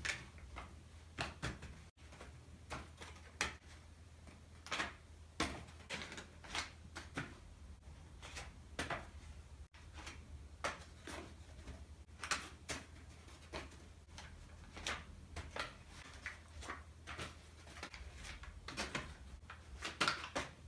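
Rubik's cube layers being turned by hand: irregular plastic clicks, about one or two a second, over a low steady hum.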